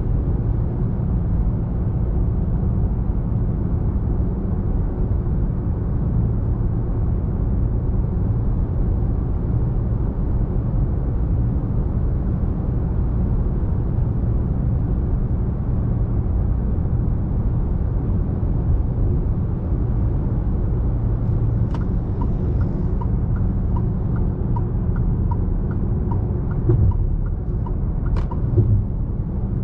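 Fiat Toro's 2.0 diesel engine running steadily while driving, a low drone mixed with road noise. About two-thirds of the way through, a regular light ticking starts, roughly one and a half ticks a second, with a couple of sharp clicks.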